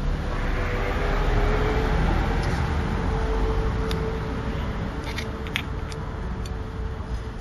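Steady rumble of motor traffic with a steady hum over it, and a few light clicks between about four and six seconds in.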